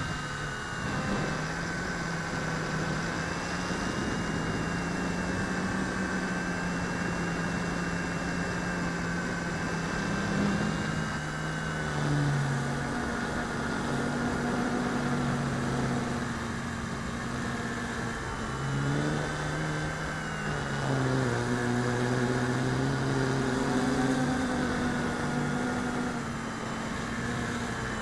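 RC Logger Xtreme quadcopter's brushless motors and propellers humming, heard from the onboard camera, several tones at slightly different pitches rising and falling together with throttle changes. It is flying on cracked, damaged 138 mm propellers with the rear left motor tilted 15–20 degrees out of line.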